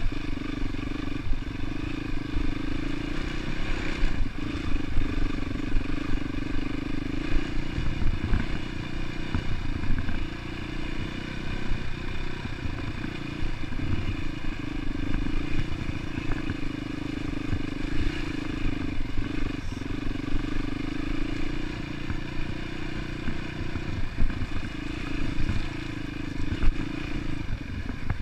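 Dirt bike engine running at a steady, moderate pace, heard up close from a camera mounted on the bike, easing off briefly about ten seconds in and again near twenty seconds. Scattered knocks and rattles from the bike over rough ground.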